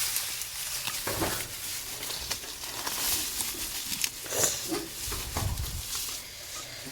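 Rustling and scattered snaps of weeds and brush being cleared by hand, with a low rumble about five seconds in.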